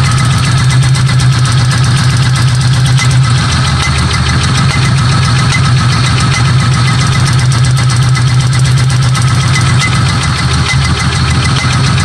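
1995 Buick Century's 3.1-litre V6 running steadily with a rapid ticking throughout: the miss and pinging, popping noise whose cause the owner is asking about.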